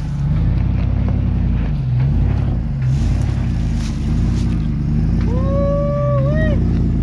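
Chevrolet Silverado 1500 pickup engine revving up and down over and over under load on a steep climb. Past the midpoint a person lets out a long drawn-out call that rises, holds and dips.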